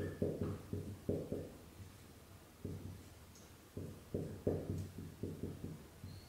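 Marker writing on a whiteboard: a run of short, irregular strokes and taps, with a pause of about a second partway through.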